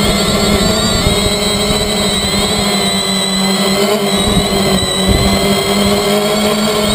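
Quadcopter's electric motors and propellers whining steadily in flight, heard from a GoPro Hero2 strapped to the frame, with wind buffeting the microphone.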